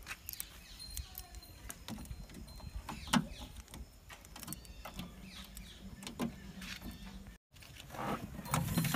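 Keys on a ring jangling and light metal clicks as a key is fitted into a tractor's bonnet lock and the latch handle is worked, scattered small clicks and rattles over a faint low hum.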